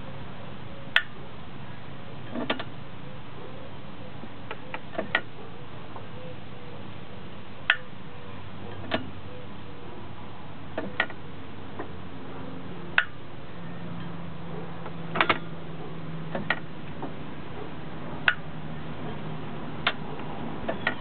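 Sharp metallic ticks, one every second or two at an uneven pace, each with a brief ring, over a low steady hum, from the clutch area of a BMW E30 whose clutch disc sticks to the flywheel.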